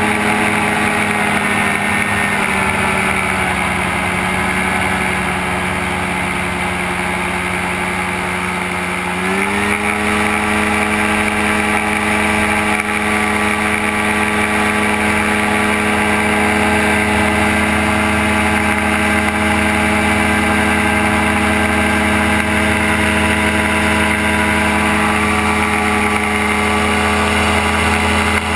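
Gyrocopter engine and propeller running steadily in flight. The engine eases back a couple of seconds in, then is throttled up again about nine seconds in and holds a steady, higher note.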